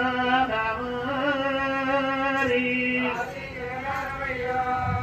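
A male voice singing in the Oggu Katha folk-ballad style, in long held, drawn-out notes that step to new pitches a few times.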